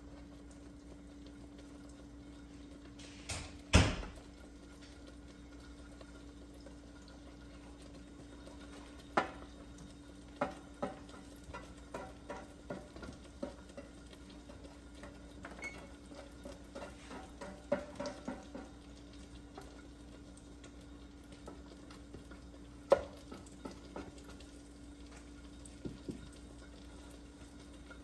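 Clinks and taps of a glass pan lid against a stainless frying pan: one sharp knock about four seconds in, then a scatter of lighter taps, over a steady low hum.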